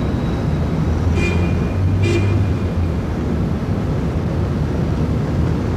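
City traffic ambience: a steady low rumble of road traffic, with two short high beeps about a second apart near the start.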